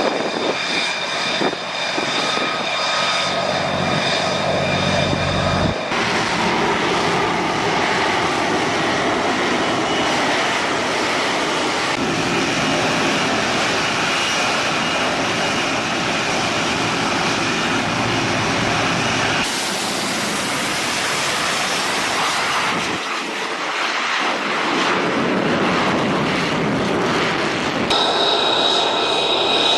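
Jet fighter engines running with a steady high-pitched whine over a rushing noise. The sound changes abruptly several times, as from separate recordings spliced together.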